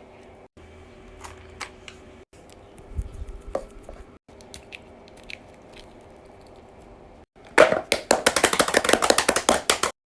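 Fidget toys being handled: scattered light clicks and taps over a faint steady hum, then a loud run of rapid clicking near the end.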